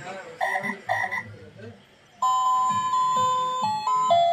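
Frogs croaking a few times. About two seconds in, a simple electronic tune of plain, steady notes starts up.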